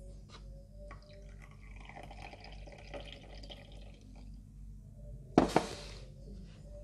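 Brewed coffee poured in a thin stream from a glass server into a small glass cup, then a sharp double knock about five seconds in as the glass server is set down on the wooden table.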